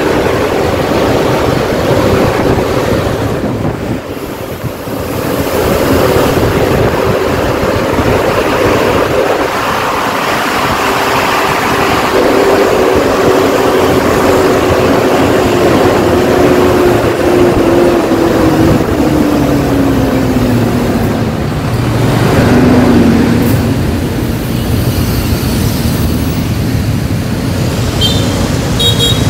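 Road traffic and engine noise with wind buffeting the microphone; a steady engine hum slides down in pitch about two-thirds of the way through as the vehicle slows.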